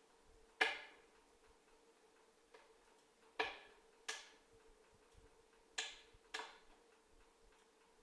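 A wood stove with a log fire burning, giving five sharp pops over about six seconds, each ringing out briefly, over a faint steady hum.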